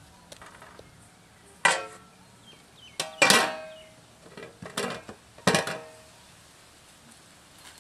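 Metal cooking utensils clanking against each other: about six sharp strikes spread over four seconds, each with a short metallic ring.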